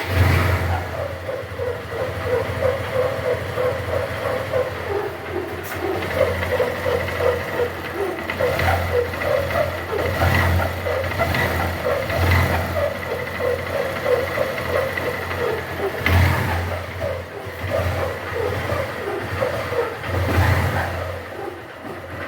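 Honda Titan 150's single-cylinder four-stroke engine running, blipped up several times, with a loud hum like something rubbing. The hum comes from a worn rear bearing on the gearbox primary shaft, which leaves the shaft with a lot of play.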